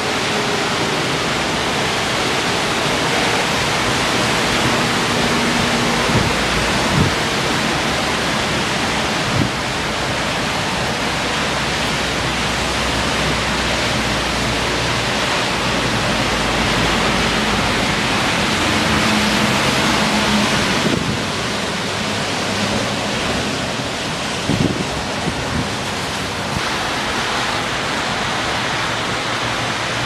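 Steady, dense hiss of typhoon rain and wind, with a few faint knocks.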